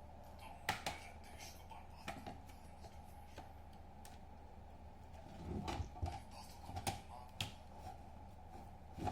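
Scattered sharp clicks and taps from handling the laptop, with a duller bump about five and a half seconds in, over a steady low hum.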